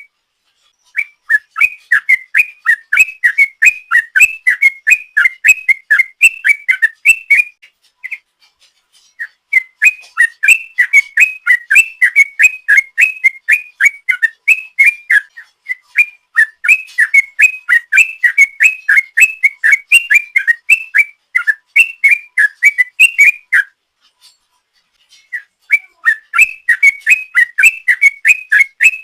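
Yellow-vented bulbul (trucuk) singing its rolling 'ropel' song. Long runs of rapid, bubbly whistled notes come several a second, in four long phrases split by short pauses.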